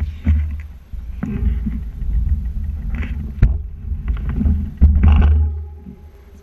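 Handling noise on a bike-mounted GoPro Hero3+ Black: muffled thumps, knocks and low rumble as the camera and bicycle are moved about, with a sharp click about three and a half seconds in. The noise dies away near the end.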